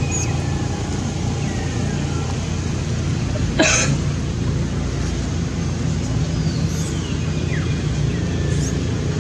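Steady low rumble like an engine or traffic, with a short sharp noise about three and a half seconds in and a few faint high squeaks.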